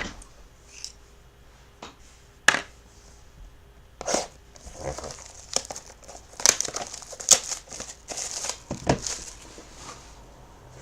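Packaging being torn open and crinkled by hand while a box of trading cards is unwrapped. A few sharp clicks and snaps come in the first seconds, then a busier stretch of crinkling and tearing from about halfway through.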